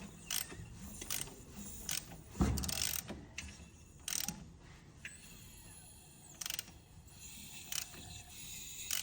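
Hyundai G4LC 1.4 engine running, with sharp irregular clicks from the flywheel end where the gearbox bolts on. The clicking was later traced to a cracked flywheel.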